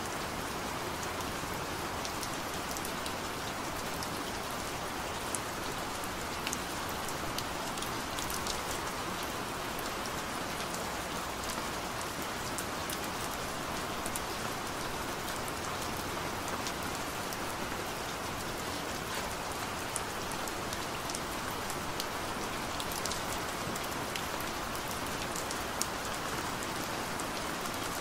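Steady hiss of rain with scattered faint ticks of drops.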